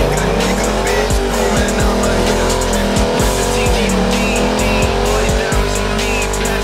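Rear tires of a Chevrolet 454 SS pickup squealing through a burnout donut, with the big-block V8 held at high revs; the squeal wavers in pitch as the truck swings round. Hip hop music with a steady beat plays over it.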